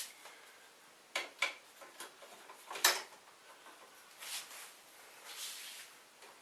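Small parts being handled and adjusted by hand: a few light clicks and knocks, a sharper one about three seconds in, with soft rubbing in between.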